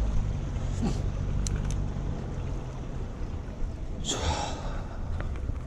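Wind rumbling on a neck-mounted GoPro microphone as a bicycle rolls along, with a sharp breath about four seconds in.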